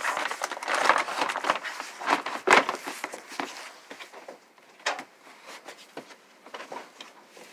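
Scattered knocks and rustling, with a sharp knock about two and a half seconds in and another near five seconds, then quieter.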